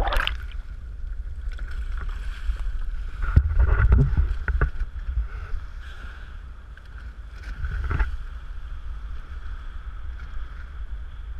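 Pilot boat's engine running, a steady low rumble with a steady higher hum, under wind and water noise on the microphone, with a few short splashes around four and eight seconds in.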